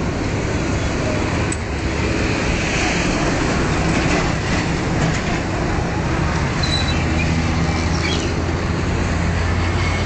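Steady roadside traffic noise with a vehicle engine's low hum running underneath, the hum growing stronger about seven seconds in.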